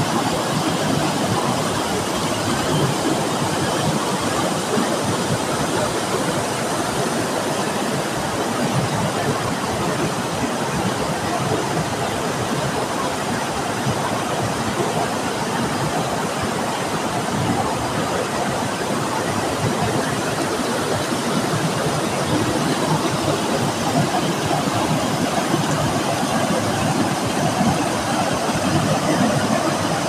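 Waterfall pouring: a steady, loud rush of falling water.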